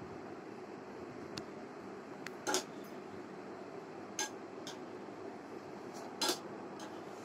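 Wire spider skimmer clinking against the deep-frying pan as fried pieces are scooped out, three sharp clinks a second or two apart with a few fainter ticks between, over a steady low hiss.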